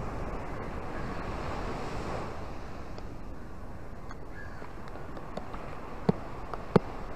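Ocean surf washing up a sandy beach and over rocks, a steady rushing that swells about two seconds in as a wave comes up the sand. Two sharp taps near the end stand out above it.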